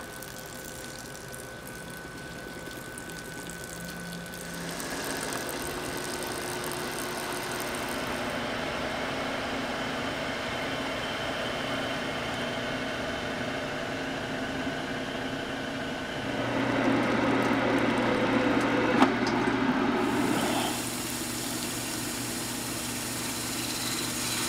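Electric wet rice grinder running steadily while milling soaked rice and water into rice milk, with the slurry pouring from its spout into a plastic tub. The machine sound starts about four seconds in and gets louder for a few seconds after the middle before settling again.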